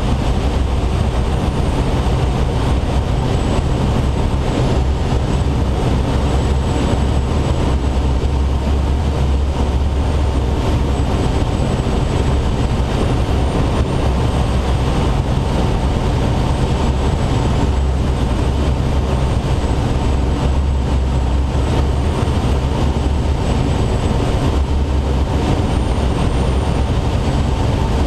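Steady rush of air inside the cockpit of a Schweizer 2-33A training glider under tow, a loud, even wind noise with a deep rumble underneath.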